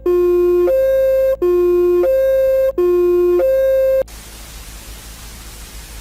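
Electronic two-tone emergency alert tone: a buzzy low note and a higher note alternating, each held about two-thirds of a second, for three low-high cycles. It cuts off about four seconds in and gives way to a steady hiss of static.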